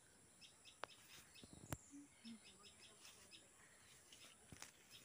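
Faint bird chirping: many short, high chirps repeated throughout, with two sharp clicks about one and two seconds in.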